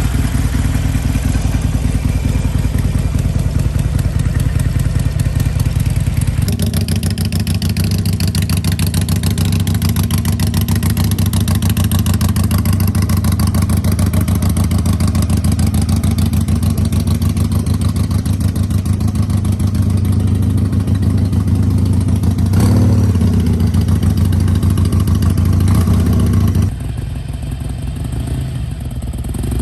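Harley-Davidson Iron 883's air-cooled V-twin running at idle through its exhaust, with a short blip of the throttle a little past twenty seconds in. The sound changes abruptly twice, about six seconds in and again near the end, where it drops in level.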